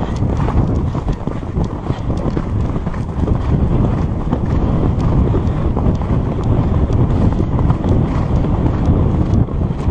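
Heavy wind buffeting the microphone of a camera carried on a galloping horse, over the irregular drumming of hooves from the herd running on a dirt track.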